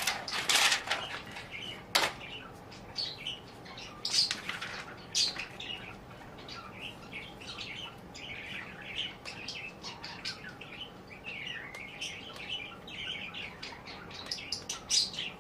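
Small bird chirping and twittering, with a few sharp clicks in the first few seconds.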